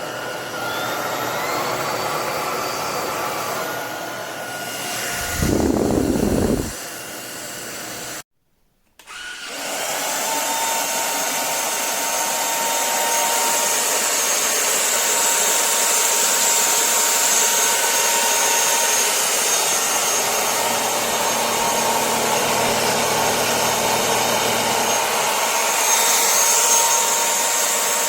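Cordless stick vacuum's brushless motor running steadily with a thin high whine. A louder low rumble lasts about a second and a half partway through. The motor noise then cuts out briefly and starts running again.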